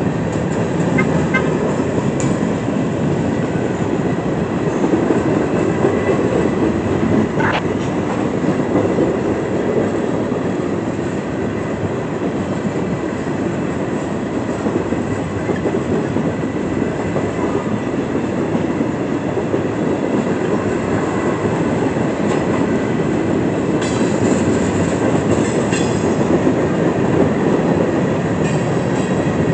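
Freight cars (covered hoppers and tank cars) rolling past, a steady noise of steel wheels running on the rails.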